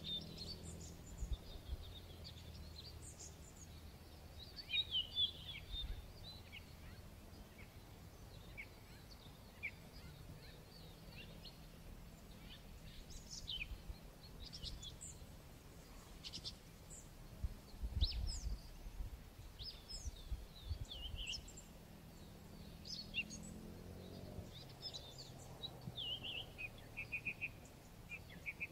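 Several small birds chirping and singing, with short calls scattered throughout and a quick run of repeated notes near the end, over a low steady hum. A low thump sounds about two-thirds of the way through.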